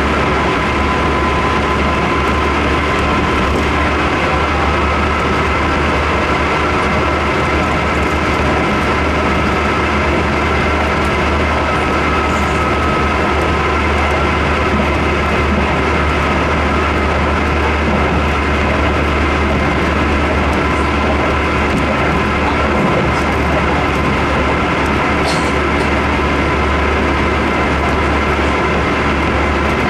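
Cabin running noise of a Keisei 3700 series electric commuter train at steady speed: an even rumble of wheels on rail with a steady high hum over it.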